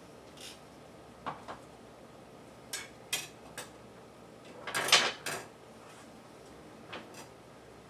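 Kitchen handling sounds: scattered light clicks and knocks of utensils and dishes, with a louder clatter about five seconds in.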